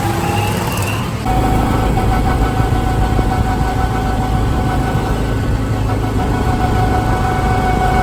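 Go-kart engine running at a steady speed, with an abrupt change in the sound about a second in.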